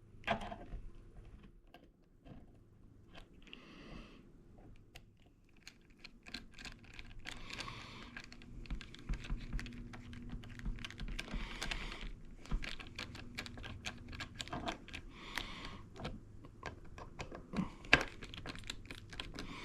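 Small metal parts of a hand ratchet being fitted back together: irregular light clicks and taps, with a few brief denser stretches of clicking.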